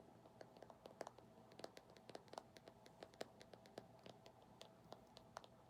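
Faint, quick, irregular light tapping for ASMR, a few sharp little clicks each second.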